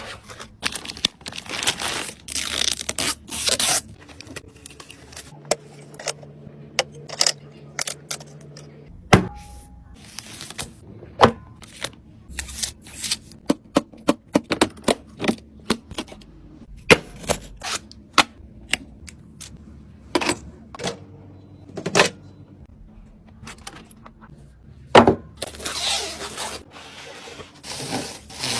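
Clicks, taps, scraping and rustling as computer parts and their packaging are handled while a gaming PC is assembled. It comes as a rapid series of short, sharp knocks and brief noisy bursts.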